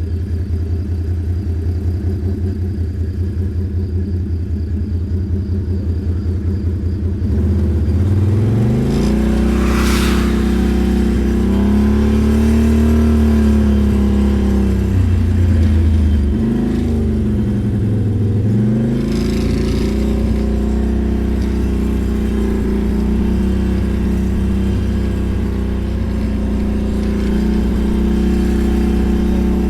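ATV engine idling with an even pulsing beat, then revving up about seven seconds in and running under throttle. Its pitch rises, drops briefly, then picks up again.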